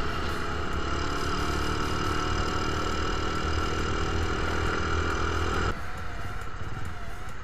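Small motorcycle engine running at a steady speed while riding. Near the end the steady engine note cuts off suddenly, leaving a quieter, rougher sound.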